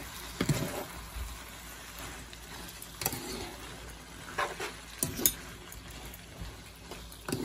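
Pasta, meatballs and vegetables in tomato sauce being tossed in a hot frying pan with two metal spoons: a steady low sizzle with scattered clinks and scrapes of the spoons against the pan.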